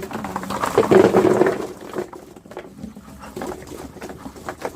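Pine cones clattering and rustling as they are tipped from a bucket into a plant container, loudest about a second in, then lighter scattered knocks.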